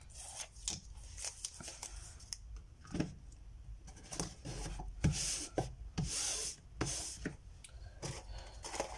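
Hands handling an artwork paper on a mat board: rustling, scraping and small taps, with a couple of short tearing hisses about halfway through as linen tape is worked off the paper with fingernails.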